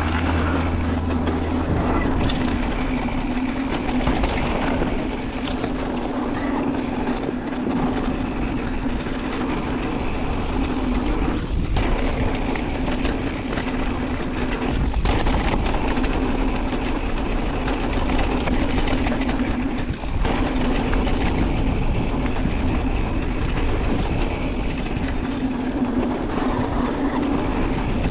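Mountain bike ridden over a dirt trail, heard from a camera mounted on the bike: a steady rumble of tyres on the ground with the bike's rattling, which runs unbroken.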